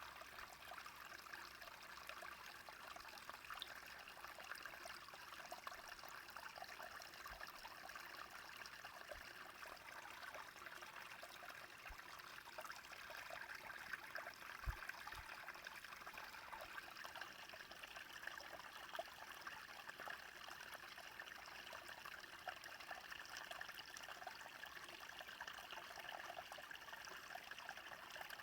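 A small brook flowing steadily over stones, a faint continuous trickling and babbling, with a couple of brief low bumps about halfway through.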